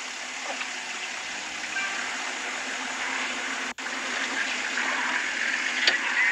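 Steady outdoor background hiss, cut by a very brief dropout about midway, with a couple of faint clicks near the end.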